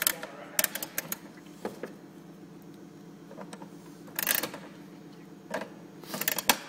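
Metal clicks and clanks from a PyroChem fire-suppression release mechanism being worked by hand as its cable is wound back and the mechanism reset. They come in scattered clusters, the biggest about four seconds in and near the end.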